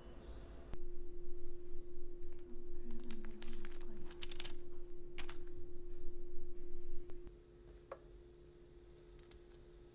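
Soft rustles and light clicks of baking parchment and croissant dough being handled, over a steady hum. A single light tap near the end as chopsticks set the dough on a waffle maker's metal plate.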